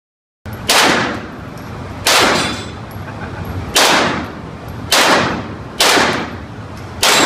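Six gunshots from a firearm at a shooting range, fired one at a time about a second to a second and a half apart. Each is a sharp crack with a short ringing tail.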